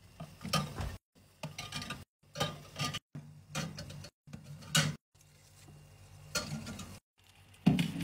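Drink cans and small milk cartons being set down and slid onto the metal wire shelves of a mini fridge: a string of light clinks and knocks, roughly one a second, broken by a few moments of dead silence.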